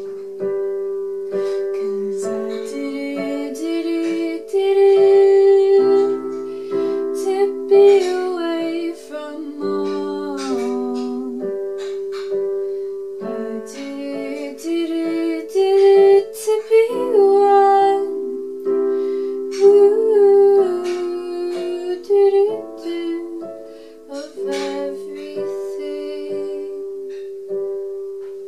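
A woman singing over sustained chords played on a digital piano.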